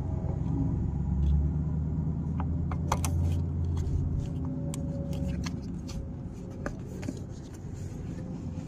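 Small clicks and rubbing as a plastic headlight-bulb wiring connector and rubber dust boot are pushed into place on the back of a headlight housing, over a steady low rumble that is heaviest in the first half.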